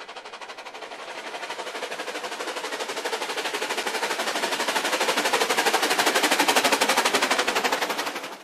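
Narrow-gauge steam locomotive working hard, its exhaust beating in rapid, even chuffs that grow louder as it approaches, then cut off abruptly.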